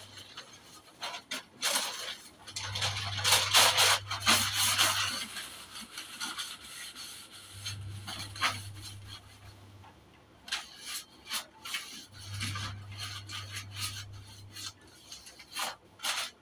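Cloth rubbing and scrubbing over kitchen shelves while they are cleaned, loudest about three to five seconds in, with short knocks and clicks of items being moved, busiest near the end. A low hum comes and goes every few seconds.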